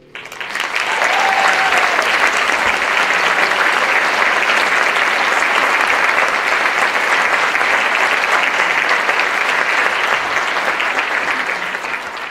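Audience applauding, the clapping swelling within the first second, holding steady, and thinning out near the end.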